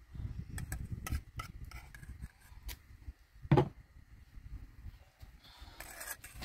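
Scattered sharp clicks and knocks, with one louder knock about three and a half seconds in, over a low rumble.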